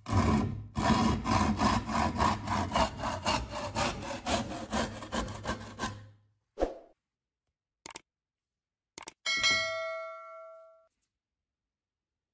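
Restored Soviet hand saw cutting across a wooden board in fast, even strokes, about four a second, stopping about six seconds in. After that come a knock, two light clicks and a ringing metallic ding that dies away over about a second and a half.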